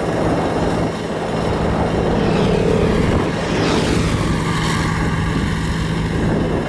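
Road roller engine running at a steady pitch, a continuous low drone.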